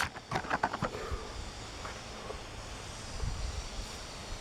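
Light handling of a toy car's card-and-blister package: a few soft clicks and taps in the first second, then a steady faint background noise.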